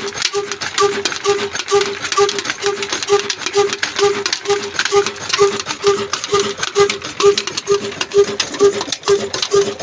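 Old Ruston diesel engine running at slow speed, each firing giving a ringing beat about twice a second, over a steady clatter from the engine and its belt-driven machinery.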